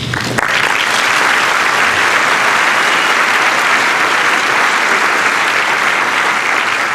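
Audience applause, with many people clapping steadily, starting about half a second in.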